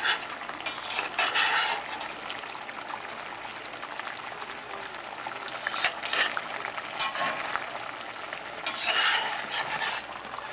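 Spatula stirring and scraping food around a stainless steel frying pan while it sizzles, in several bursts of strokes, loudest about a second in and near the end.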